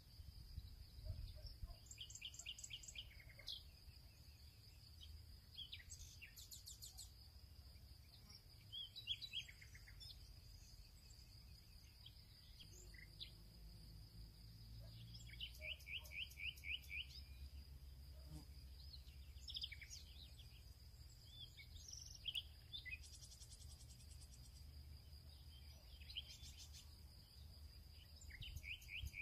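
Faint birds chirping and calling on and off, with a quick trill of repeated notes a little past halfway, over a steady high-pitched whine and a low background rumble.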